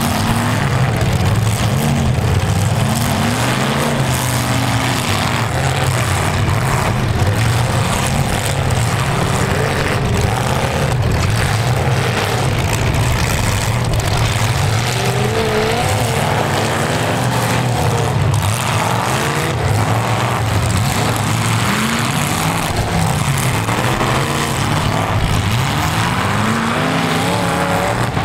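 Several full-size V8 demolition derby cars' engines running together at a loud, steady drone, revved again and again so the pitch keeps rising and falling.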